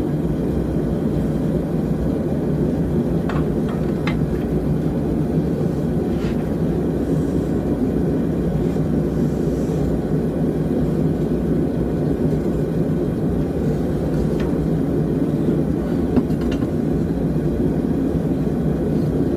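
Small forge running with a steady, low, rushing noise, with a few faint clicks and a brief knock about sixteen seconds in.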